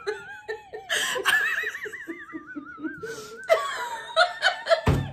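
Two women laughing together: long, wavering, warbling laughs with breathy stretches between them. A sharp thump near the end.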